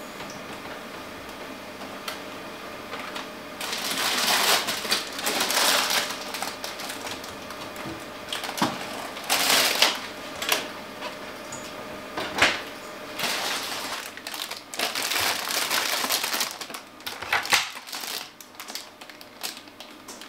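Groceries being taken out of a refrigerator: plastic-wrapped vegetables rustling and crinkling in bursts, with a few sharp knocks of containers against the shelves.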